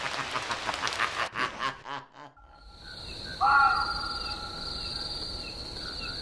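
Night ambience of crickets chirring steadily, with one bird call about three and a half seconds in. Before it, about two seconds of rapid clicking cut off abruptly.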